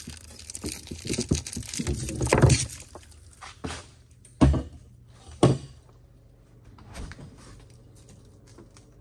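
Hands rummaging through frozen, plastic-wrapped packages of deer meat in a freezer: rustling and crinkling with knocks of hard frozen packages, loudest about two and a half seconds in. Two heavy thumps follow about a second apart near the middle, then quieter handling.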